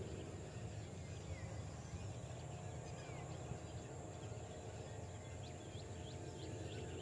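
Faint ambience of scattered short bird chirps over a low, steady rumble.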